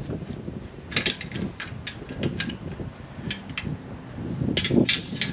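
Light metallic clicks and knocks, irregular and spaced out, as a length of copper pipe is handled and fitted into position.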